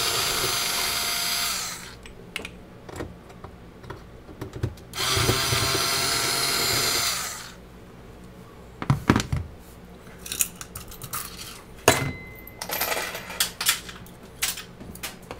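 Small cordless power screwdriver running in two bursts of about two seconds each as it backs screws out of a galvanized sheet-steel base plate. After that come scattered clicks and knocks of screws and the tool being handled and set down on the bench.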